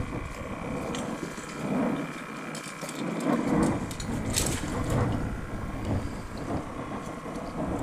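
Scattered clicks, knocks and rustles of a fishing rod and landing net being handled, over a low rumble that drops away for the first few seconds and then returns.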